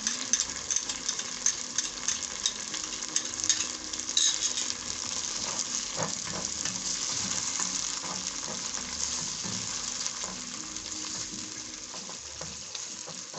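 Pan of onion, tomato and carrot base frying in oil, sizzling and crackling as it is stirred, with coconut cream just going in. The crackling is busiest in the first few seconds, then settles into a steadier sizzle.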